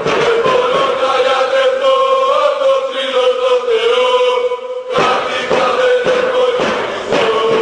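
Music track of a group of voices chanting together in unison over a beat, holding long sung notes; the sound dips almost to nothing for a moment about five seconds in, then comes back.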